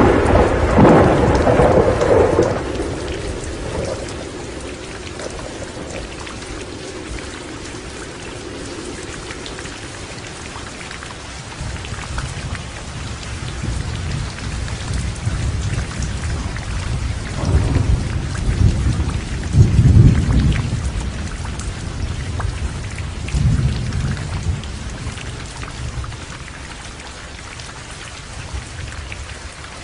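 Heavy rain falling steadily, with a loud thunderclap at the very start that rumbles away over a few seconds. More low rolls of thunder come about two-thirds of the way through.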